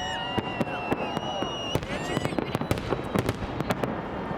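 Fireworks display: many sharp bangs and crackles in quick, irregular succession, with high whistling tones held and gliding above them.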